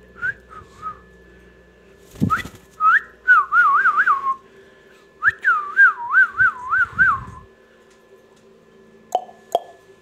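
Indian ringneck parakeet whistling two loud warbling phrases, the pitch rocking quickly up and down about four times in each, after a few short chirps. A sharp knock comes just before the first phrase and two clicks near the end.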